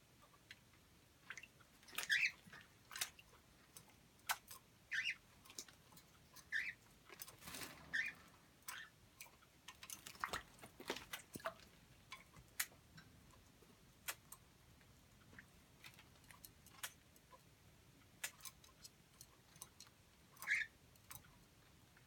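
Pet parrots at a water bowl: faint scattered clicks and taps with about five short chirps, and a couple of brief rustling noises near the middle.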